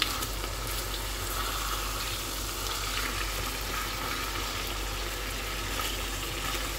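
Marinated chicken pieces sizzling steadily in hot oil in a frying pan, with a few faint clicks of tongs as the pieces are turned.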